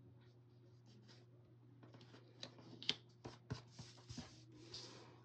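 Paper planner pages and stickers being handled on a tabletop. A few light taps and clicks start about two seconds in, the sharpest just before three seconds, then the paper slides and rustles near the end, over a faint steady low hum.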